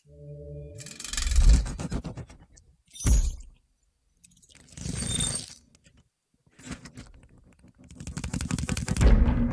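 Cinematic sound-effect intro played through a large outdoor-cinema sound system: a short steady low synth tone, then separate whooshes and a sharp hit with near-silent gaps between them, swelling to the loudest point near the end.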